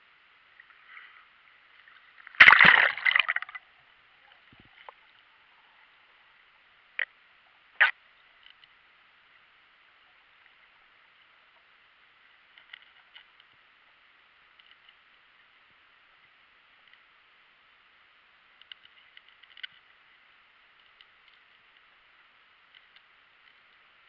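A splash about two and a half seconds in as a freediver ducks under the surface, followed by muffled underwater quiet with two sharp clicks a second apart and scattered faint ticks, all heard through a waterproof action-camera housing.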